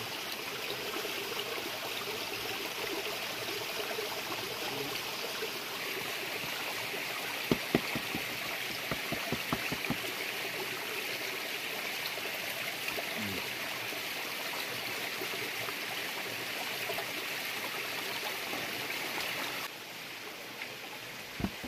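Steady rush of a flowing stream, with a short run of clicks and knocks about eight to ten seconds in. The water sound steps a little quieter for the last couple of seconds.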